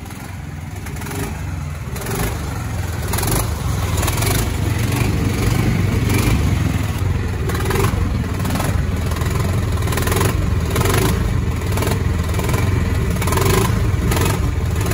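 A golf cart's gasoline engine running very loud as the cart is driven. It builds over the first few seconds, then holds steady with a rattly edge.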